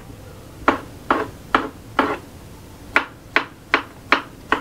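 Kitchen knife chopping a tomato on a wooden cutting board: sharp knocks of the blade against the board, four strokes, a short pause about halfway, then five more at about two to three a second.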